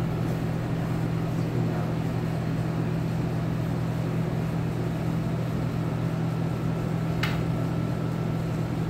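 Steady low machine hum, with one sharp click about seven seconds in.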